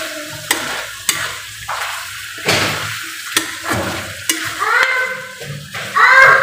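A long metal spoon stirs chicken adobo sa gata around a metal wok, scraping and clinking against the pan several times. Under it, the thick coconut-milk sauce sizzles as it reduces down toward dry.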